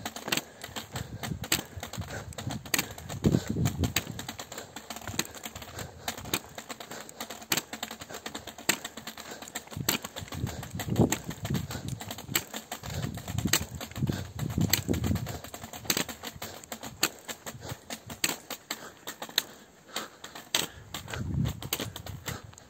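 Footsteps on an asphalt road, a string of irregular sharp clicks, with low gusts of wind buffeting the microphone.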